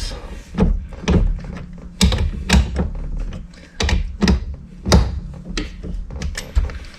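Irregular knocks and thunks of a wrench being worked on the 21 mm steering-wheel nut of a Mazda Miata NA, still tight and not yet broken loose.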